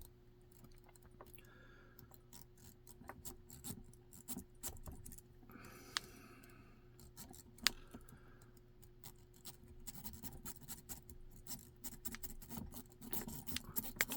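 A zip-tie rake scratching in and out of a dimple lock's keyway against the pins, held under tension from a lighter used as a tensioner. It makes light, irregular clicks and scrapes that come faster and busier in the last few seconds.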